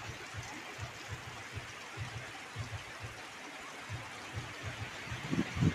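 Strong wind blowing with a steady hiss, gusts buffeting the microphone in irregular low thumps that grow stronger near the end.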